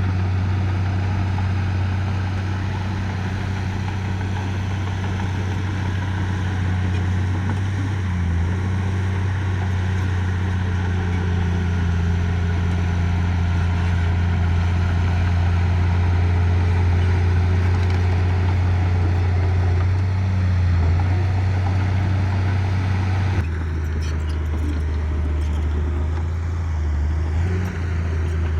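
Heavy diesel engine of construction machinery running steadily with a deep drone; its pitch drops abruptly about three-quarters of the way through.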